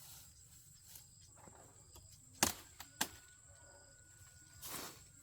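Cassava harvesting handling noises: two sharp snaps or knocks about half a second apart, then a brief rustling swish near the end.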